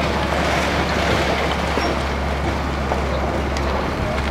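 Hitachi excavator's diesel engine running steadily while it demolishes a stone building, over a continuous rushing noise of crumbling masonry.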